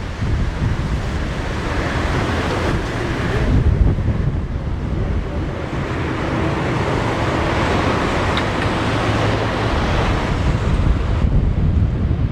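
Strong gusty wind buffeting the microphone, a dense steady rush with heavy low rumble, over the jet engine noise of a Boeing 737-800 on approach.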